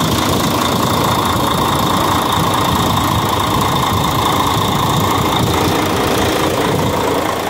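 Mercedes-Benz Axor truck's diesel engine idling steadily while still cold, at about 36 degrees.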